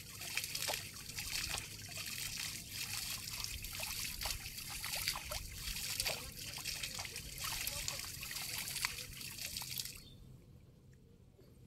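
Shallow water trickling and splashing in many small crackling bursts as a cast net is hauled in by its rope through a weedy pond. The sound cuts off suddenly about ten seconds in, leaving only faint background.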